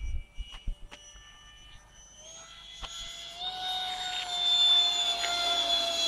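Electric ducted fan of an RC T-45 jet model, on a 4S battery with a motor from a HobbyKing Stinger 64 mm, whining steadily as it flies past. It grows louder from about two seconds in, its pitch stepping up slightly as it comes close. Wind rumbles on the microphone at the start.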